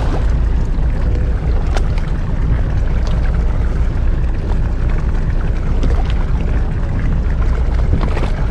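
Fishing boat's engine idling with a steady low rumble, mixed with wind and water noise.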